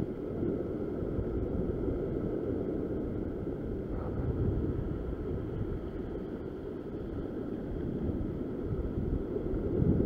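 Steady wind rumbling on the microphone over the wash of sea waves breaking against a rock ledge.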